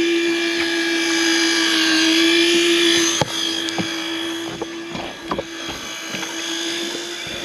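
Conventional slow-pitch jigging reel cranked fast, its gears whirring, until the whirring stops suddenly about three seconds in, leaving scattered light clicks and knocks. Under it runs a steady mechanical whine.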